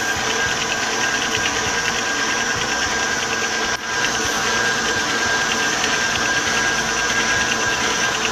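Electric stand mixer running steadily, its motor giving a constant whine as it beats cheesecake batter in a steel bowl, with a brief dip about four seconds in.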